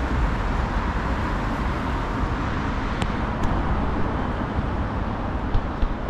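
Steady road traffic noise from cars driving along a city street, with two brief faint clicks about three seconds in.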